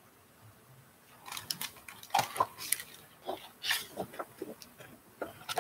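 A hardcover picture book being handled close to the microphone: a run of irregular taps, knocks and page rustles starting about a second in.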